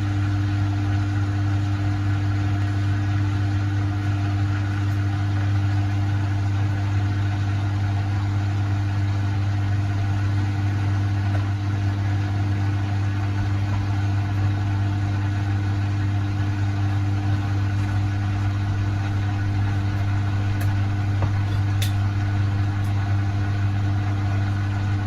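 Beko washing machine running with a loud, steady mechanical hum that cuts in suddenly and never varies, which the owner takes for the machine going crazy.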